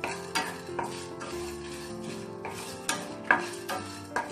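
A spatula scraping and knocking against a frying pan as toor dal and whole spices roast in a little oil, with a series of sharp clicks and the loudest knock about three seconds in. Background music plays throughout.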